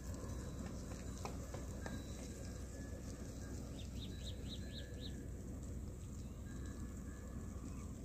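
Faint clicks and rustling from a goat herd walking through dry grass over a steady low rumble, with a small bird chirping about six times in quick succession around four seconds in.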